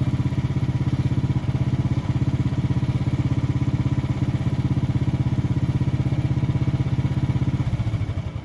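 Small gasoline engine of an OS23 portable band sawmill running steadily with an even, fast pulse, then slowing and dying away near the end.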